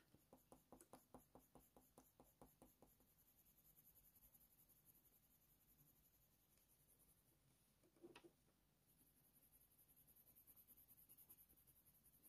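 Faint short strokes of a colour pencil scratching on hot-press watercolour paper, about four a second for the first few seconds. Another stroke comes about eight seconds in, and a short run of strokes near the end.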